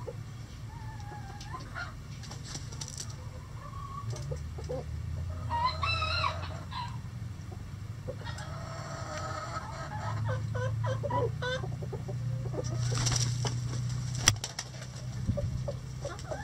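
A flock of chickens clucking, with a rooster crowing partway through. A steady low hum runs underneath, and there is a single sharp click near the end.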